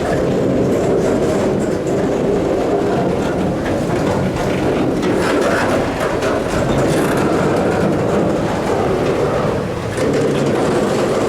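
Canadian Pacific freight train rolling by slowly, a steady rumble of railroad cars with wheels clacking over the rail.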